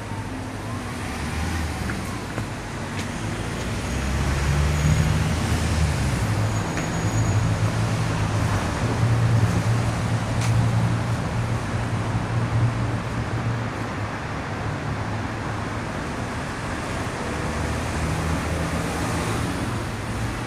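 Road traffic passing, with a low engine drone that swells about four seconds in and eases off after about fourteen seconds.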